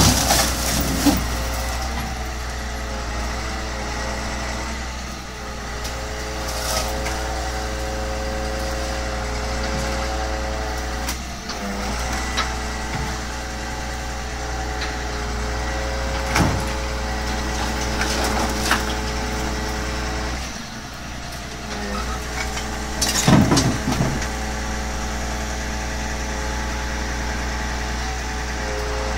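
Crane truck's engine running steadily to drive its hydraulic loader crane, as the grapple lifts a stripped 1994 Lincoln Town Car body shell. Now and then the sheet-metal shell knocks and clanks, loudest in a short cluster of knocks about 23 seconds in.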